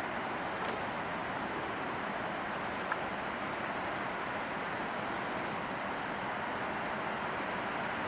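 Steady, even rushing noise with a single faint click about three seconds in.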